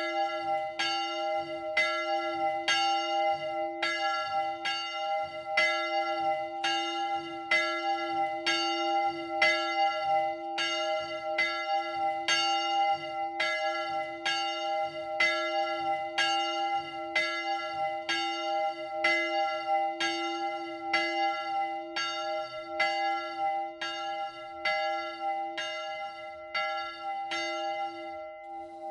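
A single bronze church bell swung by an electric drive in the Friulian 'a slancio' style, the clapper striking about once a second over a steady ringing note. It is the smallest of a three-bell De Poli set tuned to a C major scale, sounding around E4.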